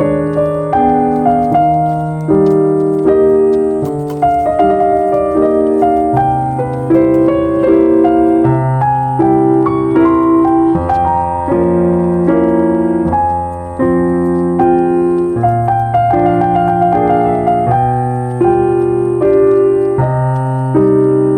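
Background music: a calm solo piano piece with slow, sustained chords over a steady low bass.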